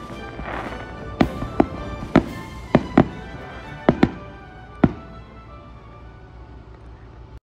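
Aerial fireworks bursting: a series of sharp bangs, about eight in the first five seconds, some in quick pairs; the bangs stop about five seconds in.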